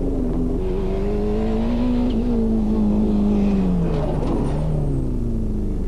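Rally car driving past: its engine note wavers as it revs, then drops steeply as it goes by, with a rush of tyre and road noise as it passes.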